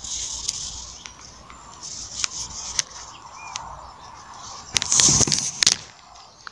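Outdoor ambience with a short bird chirp and scattered clicks, and a loud rustling burst about five seconds in.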